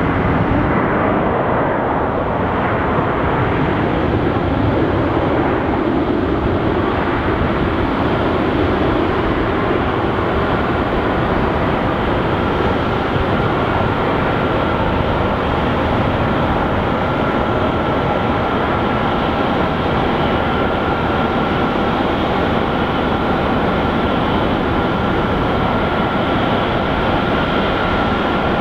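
Pratt & Whitney PW2040 turbofans of a USAF VC-32A (Boeing 757) running steadily as the jet taxis. A thin, high steady whine comes in about halfway through and holds over the engine noise.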